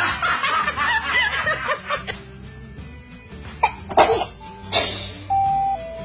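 Baby sneezing: short sharp bursts about three and a half to five seconds in, the loudest about four seconds in, preceded by a couple of seconds of excited voice sounds. Light background music with a steady bass and a simple held melody runs underneath.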